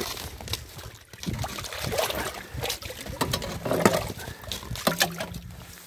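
Water sloshing and splashing in a livestock water trough with broken ice floating in it, in irregular splashes.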